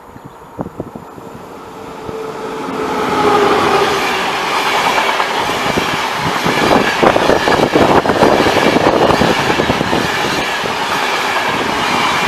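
Passenger train approaching and running past at speed: a rising rush of noise that stays loud, with the rapid clatter of wheels over the rail joints.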